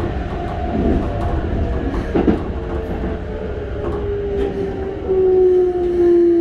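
Mitsubishi GTO-VVVF inverter and traction motors of a Keikyu 600 series train, heard inside the car as a whine that falls steadily in pitch as the train slows. It grows louder near the end, over the low rumble and clicks of the wheels on the rails.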